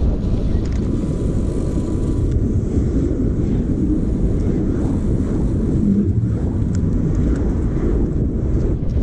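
Steady rumbling wind noise on the camera microphone of a bicycle rider moving through city traffic.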